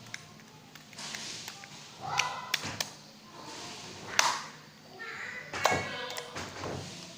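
Clear jelly slime squished and stretched by hand, giving a run of sticky clicks and pops, loudest about two seconds in, around four seconds and near the end.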